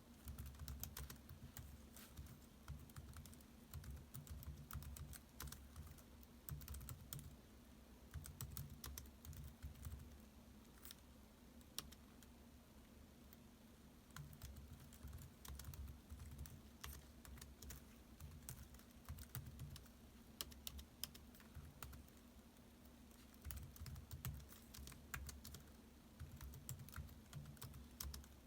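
Typing on a laptop keyboard: quick runs of soft key clicks broken by short pauses of a second or two, over a faint steady low hum.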